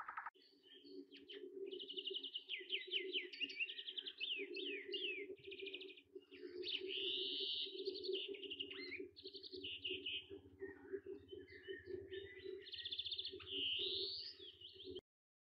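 Birdsong: several birds chirping and trilling at once, with quick rapid trills, over a steady low hum. It cuts off suddenly near the end.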